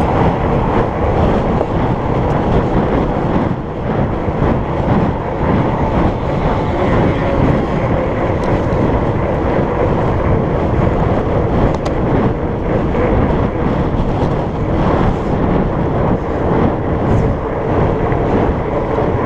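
Wind buffeting the microphone of a moving fat bike, over the steady hum of 4.8-inch Surly Knard fat tires rolling on pavement.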